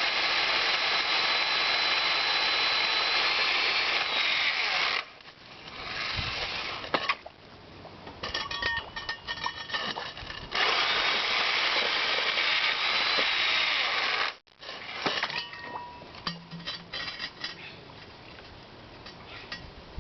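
Power drill turning a home-made core bit into sandstone. It runs steadily for about five seconds, stops, then runs again for about four seconds. Lighter scraping and knocking fill the pauses between runs.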